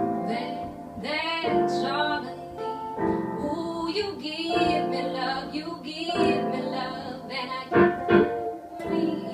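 A woman singing a slow song to piano accompaniment, her phrases bending in pitch over held chords.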